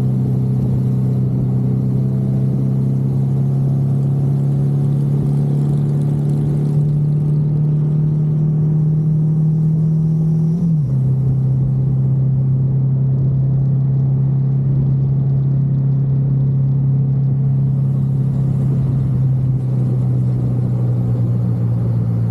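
Motorcycle engine running steadily at highway cruising speed, heard from the bike itself. About halfway through the pitch jumps briefly, then settles a little lower and holds there.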